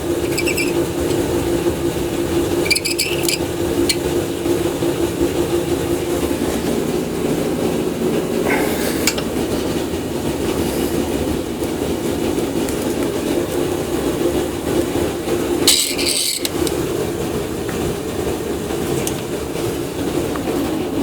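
Microwave-oven-transformer welder humming steadily while melting metal, with short crackling bursts a few times, the loudest about three and sixteen seconds in.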